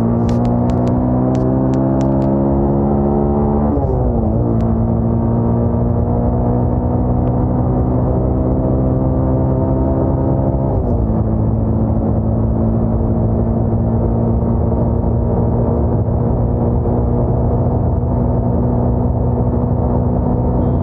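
Bajaj Pulsar 220's single-cylinder engine running under way at a steady road speed, heard from the rider's seat. Its note dips briefly in pitch twice, about 4 and 11 seconds in, and a few sharp clicks come in the first two seconds.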